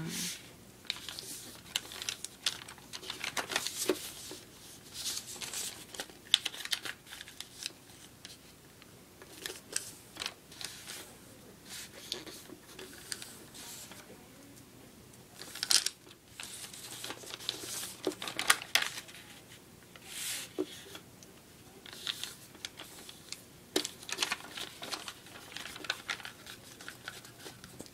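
A sheet of paper being folded and creased by hand: irregular crinkles, rustles and short sharp scrapes as the folds are pressed flat.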